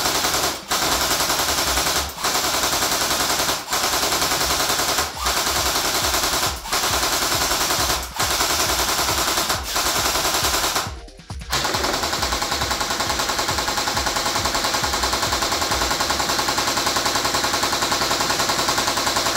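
G3-style airsoft electric gun (AEG) firing on full auto: long strings of rapid shots with brief pauses about every second and a half. A longer pause comes about eleven seconds in, then it fires without a break.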